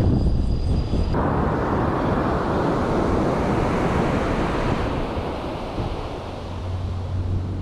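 Surf washing onto the beach, with wind buffeting the microphone.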